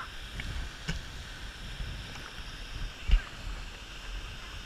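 Water sloshing and rushing in a waterfall pool, with a steady low rumble and a few faint clicks; one sharp knock about three seconds in.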